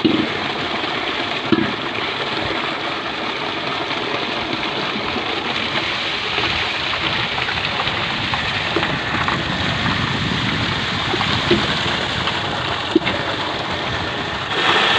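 Steady rush of water pouring from a tube-well pipe into a tank, louder near the end.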